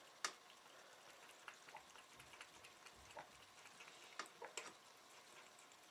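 Cat lapping milk from a jar lid on the floor: faint, irregular soft ticks of the tongue, with one sharper click about a quarter second in.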